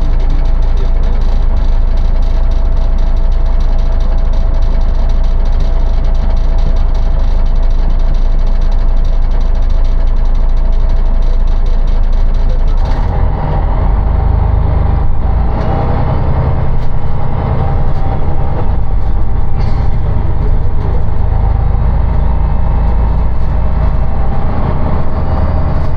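City bus running, heard from on board: a steady engine and road rumble. About halfway through the sound changes, the hiss in the upper range falls away and the deep rumble gets heavier.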